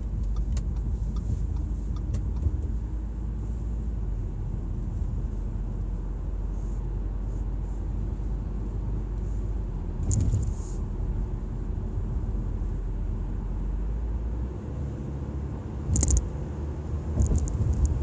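A4 car running with a steady low rumble that eases off about three-quarters of the way through. Brief louder noises come about ten seconds in, again about sixteen seconds in, and a few times near the end.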